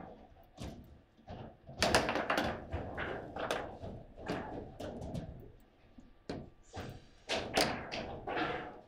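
Foosball in play: the ball struck by the table's figures and the rods knocking and thumping against the table, an irregular run of sharp knocks with louder flurries about two seconds in and again after seven seconds.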